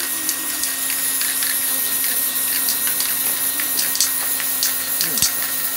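Aerosol spray-paint can hissing steadily as paint is sprayed onto a canvas, with a few short clicks near the end.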